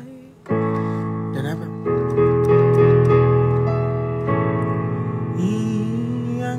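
Electric piano chords of an instrumental backing track, starting about half a second in and changing chord twice. Near the end a voice comes in over it, sliding up in pitch.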